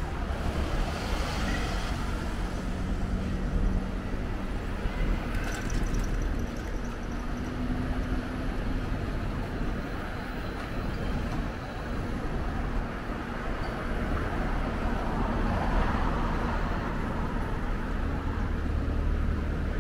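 Street traffic: motor vehicles passing with a steady rumble and hum, and a brief sharp high sound about five and a half seconds in.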